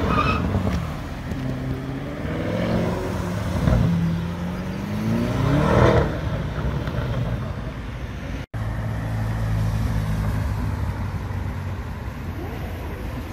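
Car engines accelerating through city traffic, the engine note rising in pitch in several sweeps. After a brief break about two-thirds through, a steadier engine note holds.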